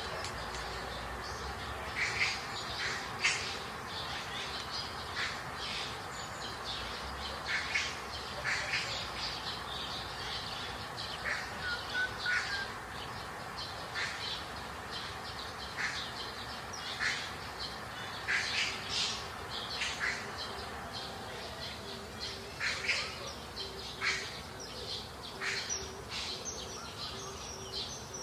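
Birds chirping and calling, short sharp calls every second or so, over a steady background hiss.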